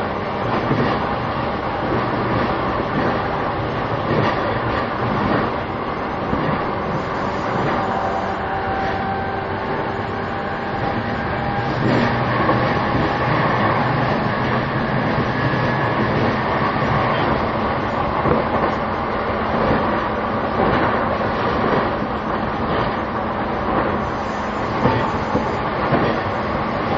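Cabin running sound of a JR East E233-2000 series electric commuter train travelling between stations: a steady rumble of wheels on rail, with a few clicks over rail joints.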